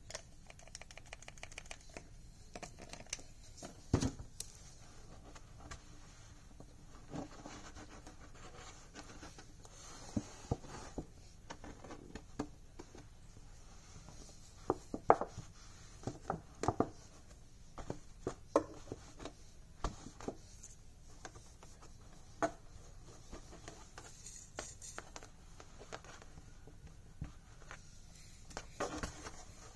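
Handling noise of faux fur being worked by hand against a lampshade: soft rubbing and scratching, with scattered irregular light clicks.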